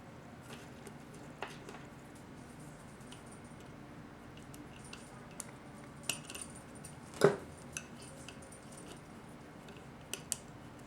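Small metal parts of a 4L60E transmission pump clicking and clinking as the vanes are fitted into the rotor slots by hand. There is a scattering of light ticks, with one sharper knock about seven seconds in.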